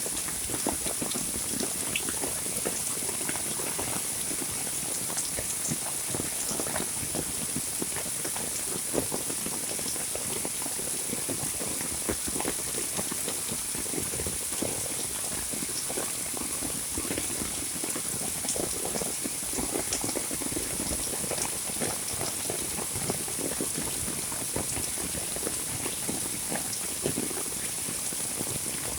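Heavy rain falling steadily: a dense patter of countless drops, with a few louder single drips standing out here and there.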